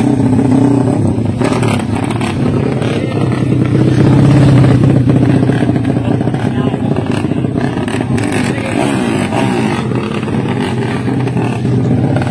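Drag-race motorcycle engines running and revving, loudest about four to five seconds in, over a crowd of spectators talking.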